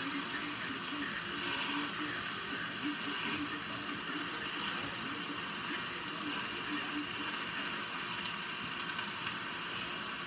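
Short high electronic beeps from the control panel of a countertop cooking appliance as its buttons are pressed: one beep about five seconds in, then six more at about two a second, over a steady hiss.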